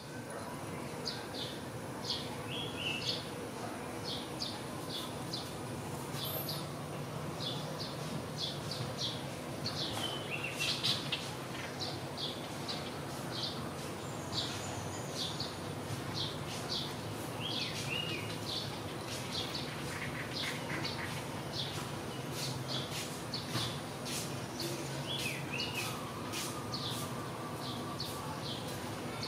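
Small birds chirping: many short, high notes, some with quick downward slurs, repeating irregularly over a steady low hum.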